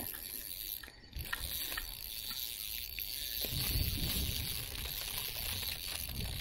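Spinning reel's drag and gears working while a hooked bass pulls against a loosely set drag, with clicks of the reel mechanism. Hand and clothing brush close to the microphone, with a low rumble about halfway through.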